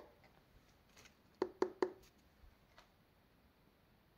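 Quick finger knocks on the thin side wall of a KEF Q100 bookshelf speaker's cabinet, one at the start and three in quick succession about a second and a half in. This is a knock test of how hollow the cabinet sounds, comparing a cabinet lined with butyl deadening mat against an undampened one.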